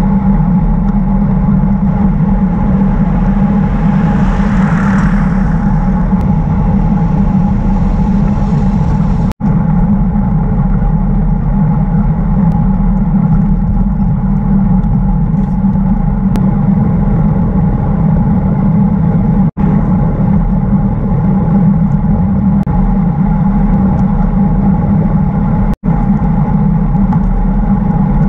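Steady wind rush on a bicycle-mounted action camera's microphone with the hum of a road bike's tyres on a highway shoulder, swelling into a louder, hissier rush about five seconds in. The sound cuts out for an instant three times.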